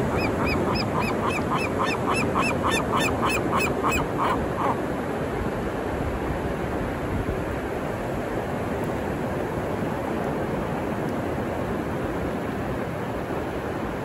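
A gull calling in a fast run of short, repeated notes, about five a second, which stops about four and a half seconds in. Breaking ocean surf rushes steadily underneath.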